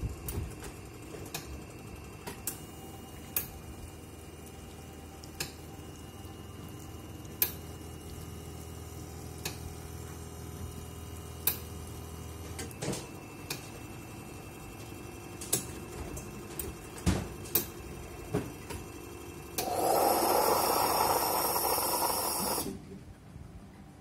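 Faema X54 Granditalia bean-to-cup coffee machine running its short washing cycle. A low steady hum lasts about ten seconds amid scattered clicks and ticks. About twenty seconds in, a loud rushing hiss runs for about three seconds and cuts off suddenly.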